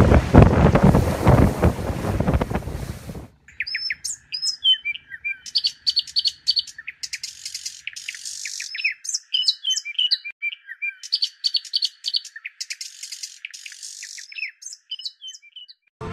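Loud rushing wind and water noise on the microphone of a moving boat, which cuts off suddenly about three seconds in. Birds then chirp and call in many quick, varied, rising and falling notes.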